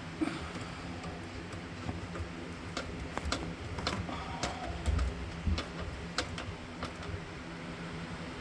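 Irregular sharp clicks and light taps of hand tools and small parts being handled during the garbage disposal installation, over a steady low hum.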